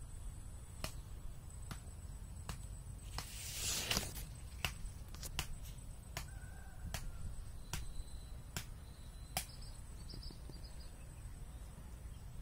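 Outdoor background: a steady low rumble with scattered sharp clicks, and a brief rustle about four seconds in.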